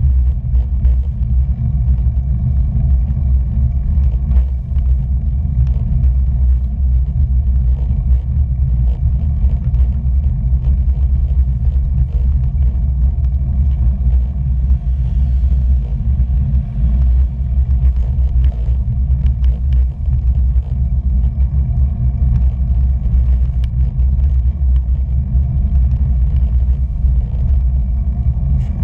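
Steady low wind rumble buffeting the microphone of a camera riding along on a bicycle.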